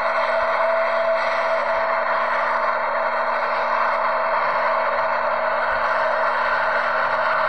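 Jet engines of a Boeing 787 Dreamliner running as the airliner moves on the ground: a steady rush with a held tone and no change in level.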